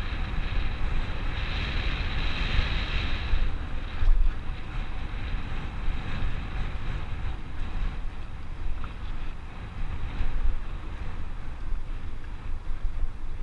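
Wind buffeting the microphone of a camera moving fast along a dirt forest trail, with a steady low rumble and rattle of the ride over the ground. There is a sharper knock about four seconds in.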